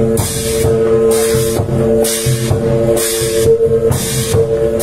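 Northern Thai klong sabat chai drum ensemble playing on the march. The big barrel drum beats a steady rhythm, cymbals crash about once a second, and gongs ring on underneath.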